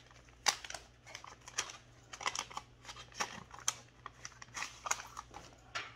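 Brown kraft paper envelope being handled and opened by hand: irregular paper rustling and crinkling with sharp crackles, the sharpest about half a second in.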